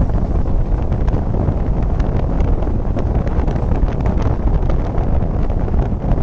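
Passenger train running at speed, heard from on board: a steady low rumble with wind buffeting the microphone and scattered light clicks and rattles.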